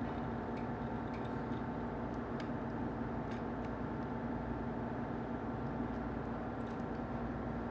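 Steady electric machine hum, like a fan or motor running, with a few faint light clicks of small parts being handled.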